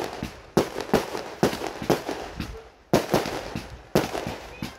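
Consumer aerial fireworks firing in rapid succession: sharp bangs of shots and bursts about two to three a second, with a brief lull just before the three-second mark.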